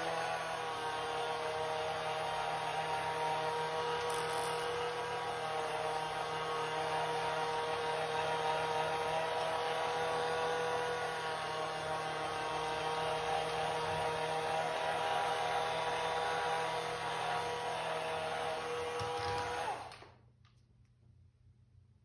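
Vileda Looper electric spin mop running, its motor humming steadily with a whine as its two round microfibre pads spin on the floor. The sound cuts off suddenly near the end.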